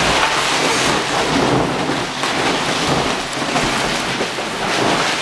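A person diving into a giant inflatable vinyl ball and thrashing around inside it: a dull thump as it begins, then a dense, continuous rustle and rumble of the vinyl skin.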